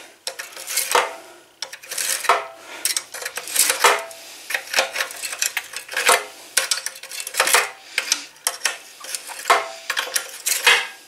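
Steel pliers clinking and scraping against the metal at the exhaust port of a 1973 Briggs and Stratton engine: an irregular run of sharp metallic clicks and knocks, some ringing briefly.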